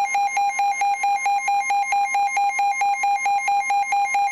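Weather alert radio's electronic alarm: a harsh, steady beeping tone pulsing about four times a second, signalling an incoming warning.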